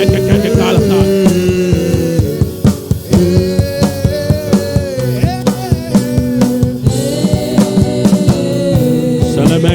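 Music with a drum kit: a steady beat under sustained singing or chords.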